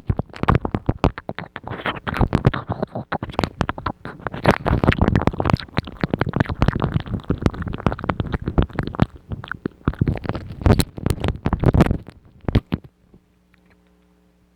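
ASMR mouth sounds close to the microphone: rapid wet clicks and smacks, densely packed and uneven. They stop abruptly about twelve seconds in, leaving only a faint steady hum.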